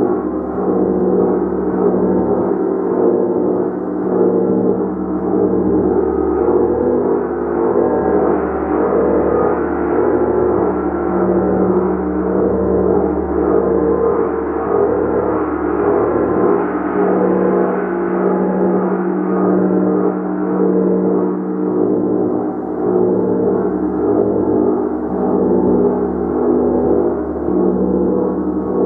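A large gong being played continuously, a dense, sustained wash of many overlapping ringing tones that swells and ebbs with soft repeated strokes.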